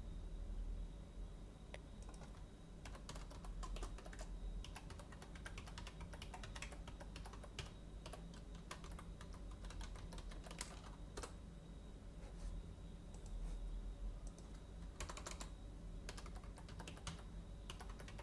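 Faint typing on a computer keyboard: irregular runs of keystrokes with short pauses, over a low steady hum.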